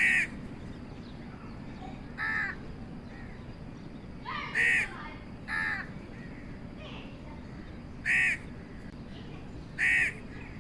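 A crow cawing: six short, harsh single caws at uneven intervals of one to two and a half seconds, over a steady low background hiss.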